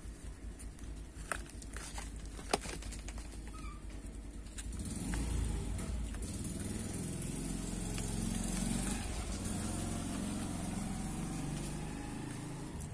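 A motor vehicle's engine running, becoming louder about five seconds in and then holding steady, with a few sharp clicks before it grows.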